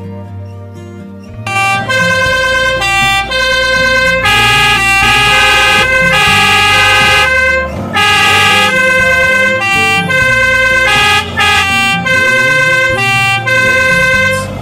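Steyr 32S36 fire engine's warning signal sounding loudly, in steady tones that step between several pitches two or three times a second. It starts about a second and a half in, over soft background music.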